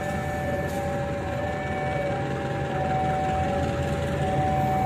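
Level crossing warning alarm sounding a steady two-tone pattern, alternating a higher and a lower note every second or so, with the low rumble of a shunting diesel locomotive underneath.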